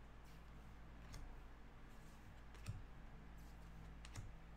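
Three faint clicks, about a second and a half apart, of baseball trading cards being handled and set down one after another, over a low steady hum.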